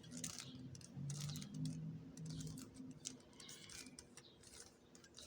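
Rubik's cube layers being turned by hand: a run of quick plastic clicks and clacks, fainter towards the end.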